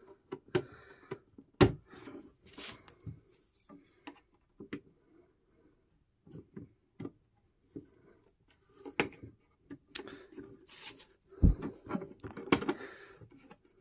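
Scattered clicks, knocks and rubbing as a car armrest is handled and its lid pried at, with two sharper knocks, one about a second and a half in and one near the end.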